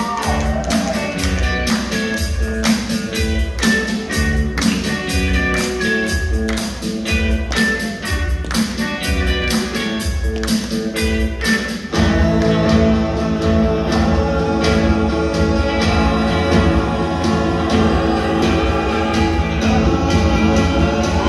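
Live rock band with drums and electric guitar playing a steady beat, then about twelve seconds in a vocal group comes in with long held sung harmonies over sustained chords, and the music gets louder.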